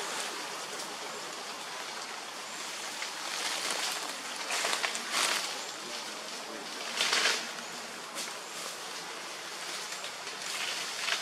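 Steady outdoor forest background hiss, with a few short bursts of rustling noise around the middle.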